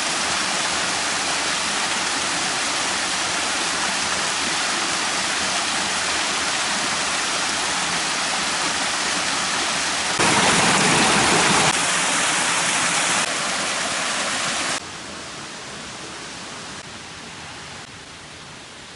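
Steady rushing of a waterfall. It jumps abruptly louder about ten seconds in, then drops in a few sudden steps to a fainter rush near the end.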